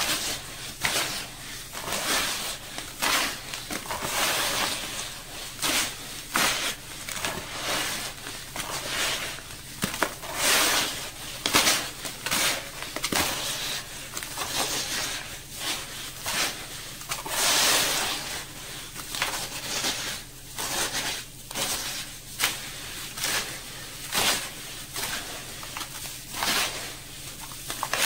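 Hands crushing, squeezing and raking sand-cement mix in a plastic tub, the mix going from dry powder to damp gritty clumps. The sound is gritty crunching and scraping in irregular strokes, about one or two a second.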